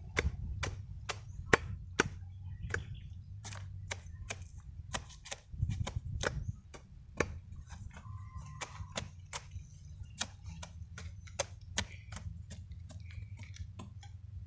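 Machete blade chopping repeatedly into a banana sucker's corm, short sharp knocks about two to three a second, as the corm is pared away to expose its buds for propagation.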